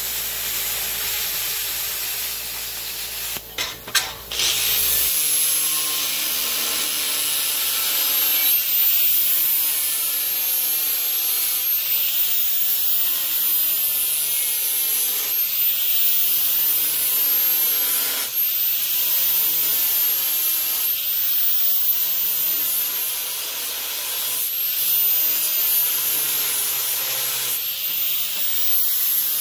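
A plasma cutter hisses as it cuts sheet steel for about the first four seconds. Then a DeWalt angle grinder with a flap disc grinds the cut edges of the steel plate, its whine rising and falling in passes about every three seconds.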